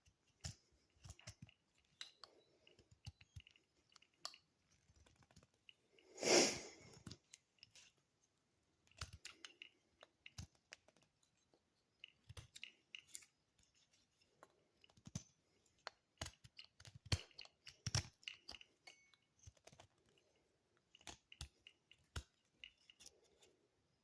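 Small knife cutting into a material: a string of quiet, irregular clicks and crunching cuts, with one louder rushing sound about six seconds in.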